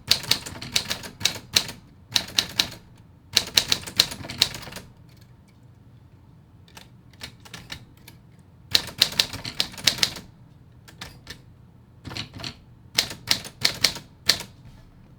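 Keys of a 1940s Smith Corona Silent manual portable typewriter being typed in quick runs of sharp clacks, broken by pauses of a few seconds.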